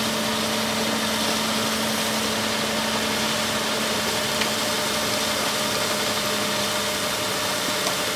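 John Deere tractor engine running steadily, powering the SlurryKat vacuum tanker's pump as the tanker's cannon sprays water, under a steady hiss.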